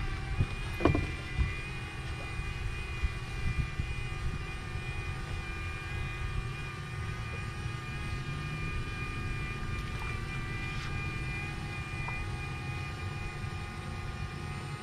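DJI Mini quadcopter drone hovering: a steady high propeller whine over a low rumble, with a couple of knocks in the first second or two.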